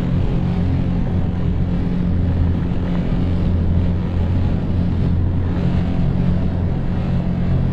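An engine running steadily at a low, even pitch, its tone shifting slightly about four seconds in.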